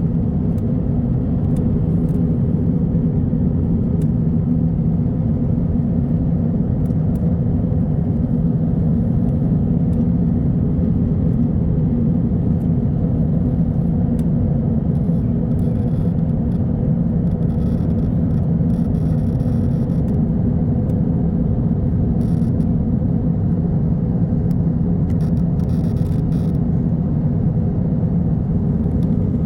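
Steady in-flight airliner cabin noise: an even, unbroken rumble of jet engines and rushing air, with a low hum.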